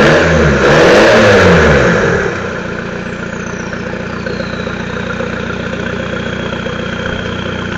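SEAT Ibiza 1.9 TDI 90 hp four-cylinder diesel with a straight-through exhaust, revved up and back down in the first two seconds, then settling to a steady idle.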